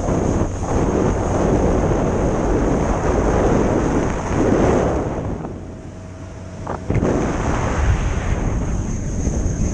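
Wind buffeting the microphone of a camera on a moving motorboat, over the rush of water along the hull. The rushing drops off briefly about six seconds in, then picks up again.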